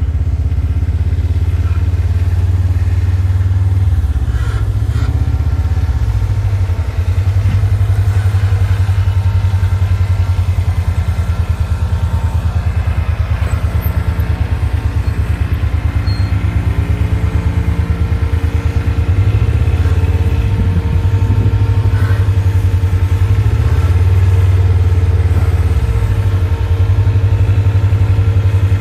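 Compact diesel tractor engine running steadily under load while dragging a log, a low pulsing rumble throughout; about 16 seconds in, a higher tone rises and then holds.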